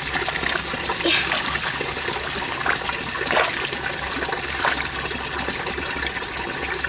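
Water trickling steadily in a shallow muddy stream, with a few faint splashes.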